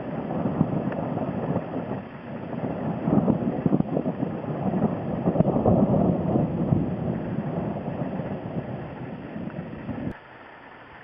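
Gusty wind buffeting the microphone, loud and uneven, swelling and easing, then dropping off sharply about ten seconds in.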